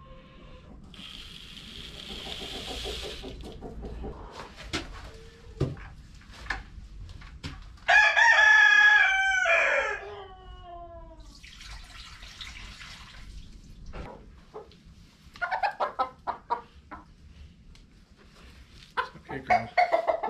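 A rooster crows once, about eight seconds in: a two-second call that falls away at the end. Chickens cluck in short runs near the end.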